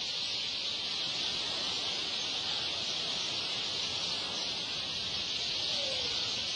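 A steady, high-pitched hiss that holds an even level, with no pulse or rhythm.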